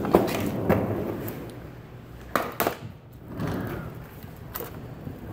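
Scattered sharp knocks and clicks with rustling in between, from a handheld phone being moved and handled in a garage.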